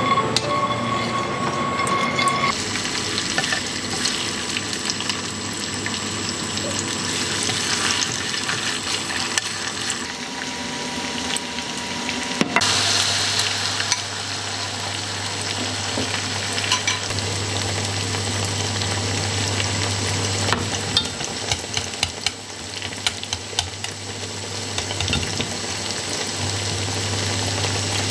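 Sauce bubbling and crackling in a saucepan. About twelve seconds in, a beaten egg and vegetable mixture is poured into hot oil in a frying pan and starts sizzling, frying at medium heat with the clicks and scrapes of a wooden spatula stirring it.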